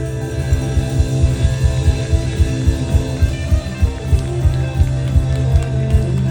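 A rock band playing: guitars over bass, with a steady drum beat.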